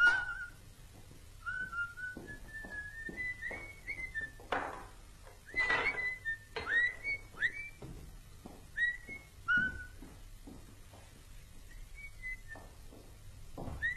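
A person whistling a tune in short, gliding notes, over scattered knocks and clinks of kitchen utensils while an omelette is being cooked.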